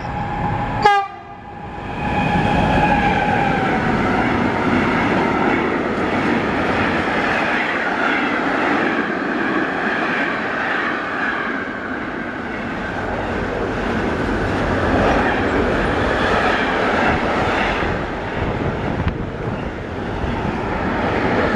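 Electric locomotive sounding a held horn tone that fades out about three seconds in, then a long intermodal freight train of road trailers on low wagons passing at speed, with steady loud wheel and rail noise. A sharp click comes about a second in.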